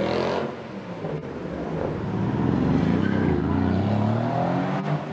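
Mercedes-AMG C-Class cars driving past one after the other: the first car's engine fades away in the first half second, then a second car's engine builds up and revs as it accelerates past, loudest about three to four seconds in.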